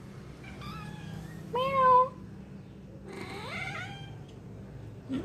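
A cat meowing: three calls, the loudest about a second and a half in and the last rising in pitch, over a steady low hum.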